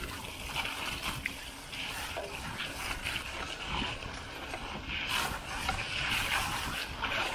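Mountain bike tyres rolling through wet mud and puddles, with crackling spatter and splashing, louder about five seconds in.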